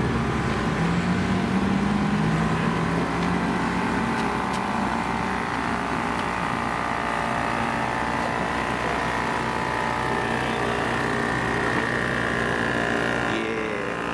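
An engine running steadily, its pitch rising slowly over the first few seconds and then holding.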